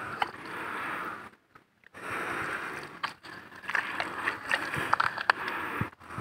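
Wet mud squelching and splashing as hands dig into a waterlogged mud hole, with a steady hiss at first and irregular sharp wet splats and clicks in the second half. The sound cuts out briefly about a second and a half in.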